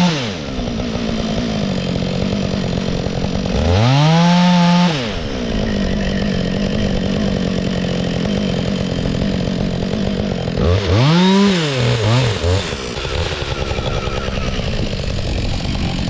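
Chainsaw cutting into a log, its engine dropping from full throttle at the start, revving up again for about a second around four seconds in, and again with a wavering pitch for a couple of seconds near the middle, running lower in between.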